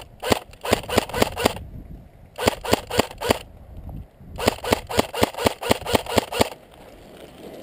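Airsoft rifle firing rapid single shots in three strings, about five shots a second, with short pauses between the strings.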